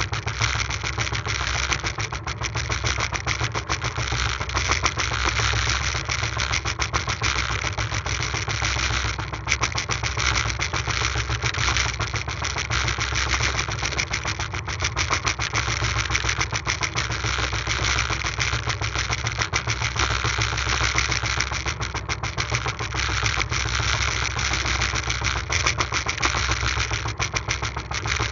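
Small fishing boat's engine running steadily under way, a rapid, even chugging that holds the same pace and level throughout.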